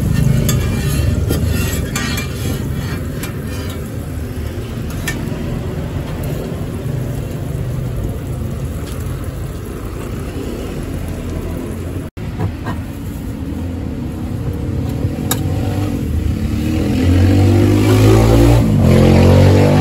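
Street traffic rumbling steadily, with scattered light clicks, and a vehicle engine revving up and passing near the end.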